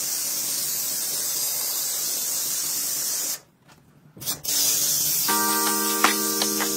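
High-pressure water jet spraying with a steady hiss, as when jet-washing an air conditioner; it cuts off a little past halfway and starts again about a second later. Background music with sustained tones comes in near the end.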